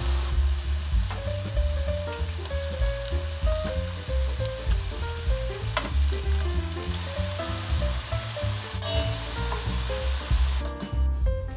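Battered potato sticks deep-frying in hot oil in a stainless steel pot, a steady sizzle with a few sharp clicks as metal tongs turn them. The sizzle cuts off near the end.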